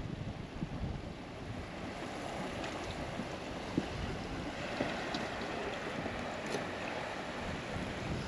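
Wind buffeting the microphone over small waves washing against a rocky shoreline, with a few faint knocks.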